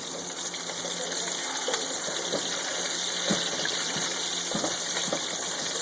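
Potato pancakes frying in a hot pan: a steady sizzle with a few small clicks scattered through it.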